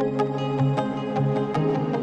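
Background music with sustained tones and a light, regular beat.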